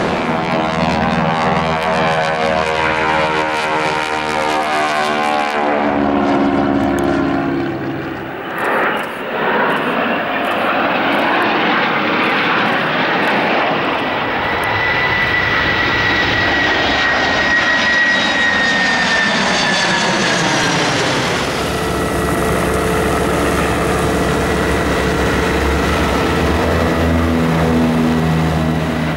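Low aircraft flybys in succession. First a twin-engine propeller plane, a Lockheed Model 10 Electra, passes with its engine note falling in pitch. After a break, jets pass in a rushing flyby with a high whine that slowly drops. From about two-thirds of the way in, the lower, throbbing engines of light planes and a small helicopter take over.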